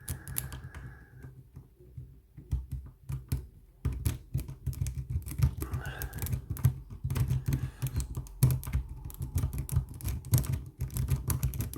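Lock pick rake being worked in the keyway of an ISEO euro cylinder: a rapid, irregular run of small metallic clicks and rattles as it scrubs over the pin tumblers, sparse at first and much denser from about four seconds in. This is raking to push the pins toward a false set.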